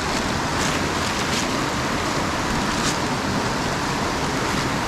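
Millard Creek rushing steadily in high flow, swollen by storm runoff.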